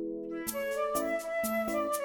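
Background music: a held chord, then a light melody of short notes over a steady beat that starts about half a second in.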